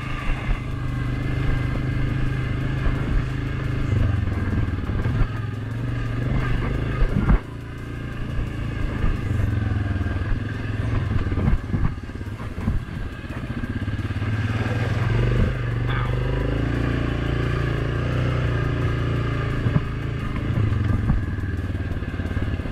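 Suzuki KingQuad 750 ATV's single-cylinder engine running under throttle on a bumpy trail, with knocks and rattles from the machine over the ground. The engine note drops off suddenly about seven seconds in and picks back up around fourteen seconds.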